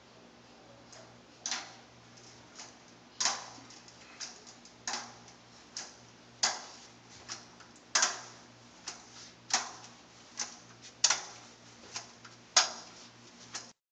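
Metal crutches clacking as a person swings along on them: a sharp click about every second and a half, with fainter ticks between, over a steady low hum.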